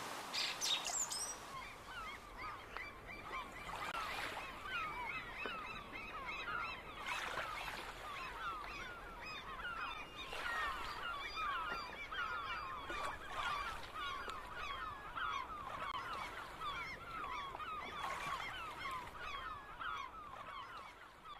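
A large flock of birds calling, many short overlapping calls that slide in pitch, thickening into a steady chorus about two seconds in.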